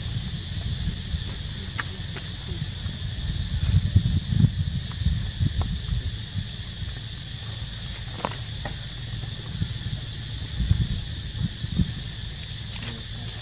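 Outdoor ambience: a steady, high-pitched insect drone, with a low, gusty rumble on the microphone that is strongest about four seconds in and again near eleven seconds.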